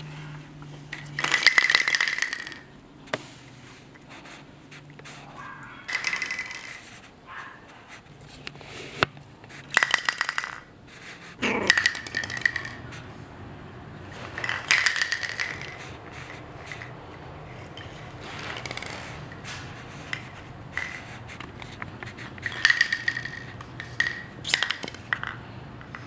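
Hollow plastic toy bowling pins clattering and rattling on a hardwood floor as puppies knock them over and push them about, in several separate bursts of about a second each.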